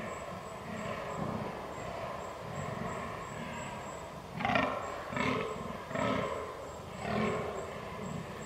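Rutting fallow deer buck groaning: a steady run of short, low, rhythmic groans, with four louder groans in quick succession over the second half.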